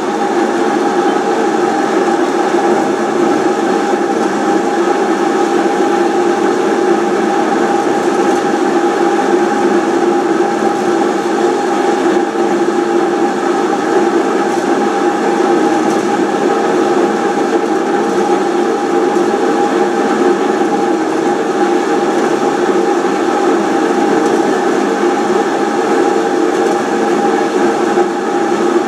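Haas SL30 big-bore CNC turning center running its program: a steady mechanical hum with several steady whining tones, holding level throughout.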